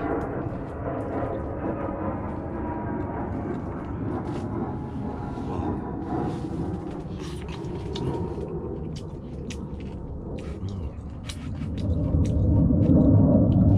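Steady low rumbling noise that swells louder near the end, with scattered light clicks of wooden chopsticks against a rice bowl.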